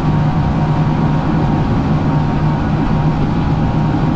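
Mercury OptiMax two-stroke outboard running steadily at speed, a constant low drone over the rush of the hull and wake through the water.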